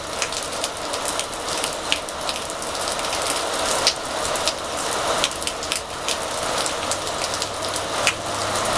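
Steady rain falling, with many individual drops striking close by as irregular sharp ticks over an even hiss.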